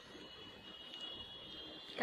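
Quiet room tone with a faint, steady high-pitched whine.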